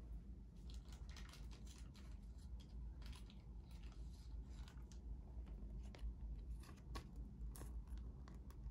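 Trading cards being handled by hand: a faint, irregular run of short rustles, scrapes and clicks as the cards are shuffled and slid against each other.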